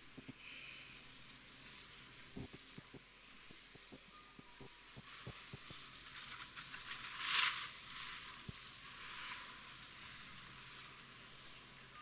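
Steady high hiss with scattered faint knocks, swelling into a loud swish about seven and a half seconds in.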